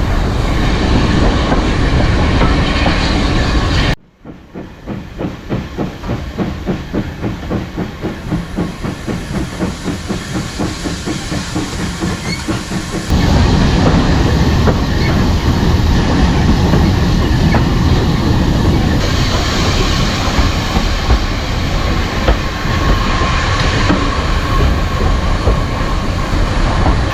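A steam train running on the rails, with a steady rumble and clatter. About four seconds in, the sound cuts to a steam locomotive's exhaust chuffing in an even rhythm of about three beats a second. Around the middle it cuts back to a loud, steady rumble and clatter of the carriages on the track.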